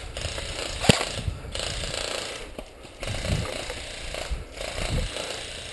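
Airsoft electric gun firing in rapid full-auto bursts, a rattling mechanical clatter broken by short pauses, with one sharp crack about a second in.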